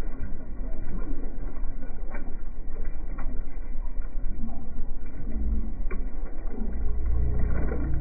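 Steady low rumble of a sportfishing boat under way, with water sloshing and pouring in the live-bait tank as a dip net is scooped through it and lifted out, and a few short knocks.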